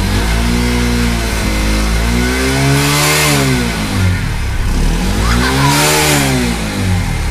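Bajaj Platina motorcycle's single-cylinder four-stroke engine revved hard by throttle twists, its pitch climbing and dropping back repeatedly, with the highest revs about three and six seconds in.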